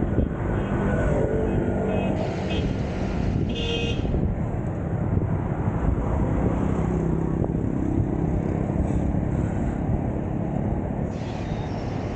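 Steady road traffic noise with a low rumble, and a brief high tone near four seconds in.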